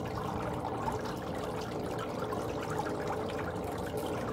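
Water running steadily into a pedicure chair's foot-spa basin, an even continuous rush with no breaks.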